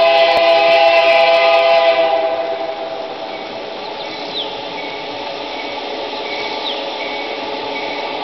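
Model diesel locomotive's onboard sound system sounding a multi-chime horn, which fades out about two seconds in, leaving the quieter sound of the running engine.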